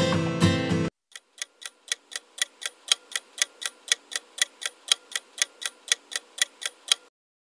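Clock-ticking sound effect marking a quiz countdown timer, an even tick about four times a second. A short stretch of music cuts off about a second in, before the ticking starts, and the ticking stops shortly before the end.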